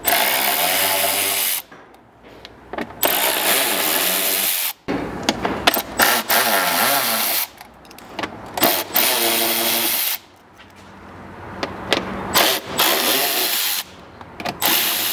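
Handheld power driver running in five short bursts of a second and a half to two seconds, its motor whine rising and falling in pitch, as it backs out the screws holding the rear bumper fascia.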